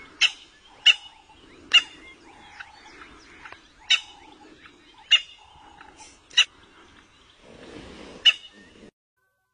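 A series of sharp, loud animal cries at irregular intervals, with a fainter repeating lower call and a low rough sound between them, all cutting off abruptly near the end.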